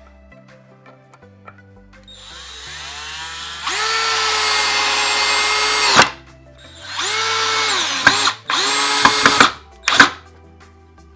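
Bauer 20V Hypermax cordless drill driving a screw into wood without a pilot hole. The motor whine rises as the trigger is squeezed about two seconds in, runs at a steady top speed for a couple of seconds and stops, then comes back in three shorter bursts near the end.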